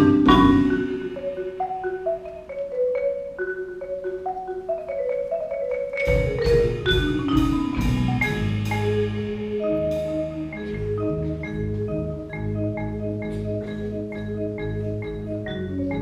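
Tuned mallet percussion music, struck wooden-bar notes. A loud chord fades at the start, then single notes step downward in a sparse line. About six seconds in, low notes enter beneath a steady repeating pattern of short higher notes.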